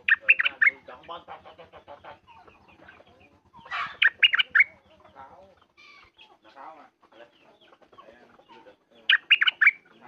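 Caged bulbul singing a short loud phrase of four or five quick notes, three times at intervals of about four to five seconds, over fainter calls of other birds.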